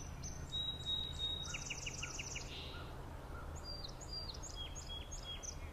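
Songbirds singing and chirping, with a quick series of about six short notes about a second and a half in, and scattered single chirps later, over a low steady background noise.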